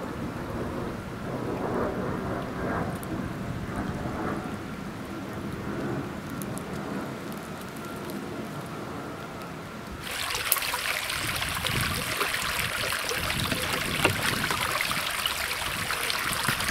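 A low, steady rumble for about ten seconds. Then a sudden switch to loud splashing and pouring water as a plastic bucket is filled in a creek and lifted out, water streaming from it.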